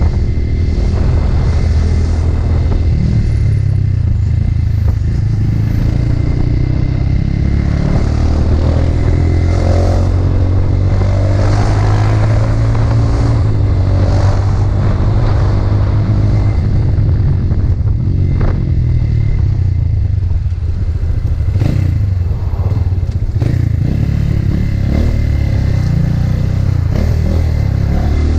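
Motorcycle engine running under way, its note rising and falling several times as the rider accelerates and changes gear.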